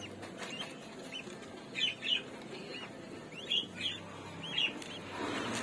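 Parrot chicks cheeping: short, high begging chirps, mostly in quick pairs, a handful of times.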